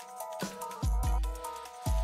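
Background electronic music: held synth chords with a deep bass kick landing four times.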